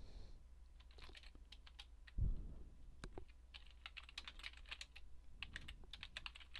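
Faint typing on a computer keyboard: scattered, irregular key clicks as a command is entered, with one dull thump a little over two seconds in.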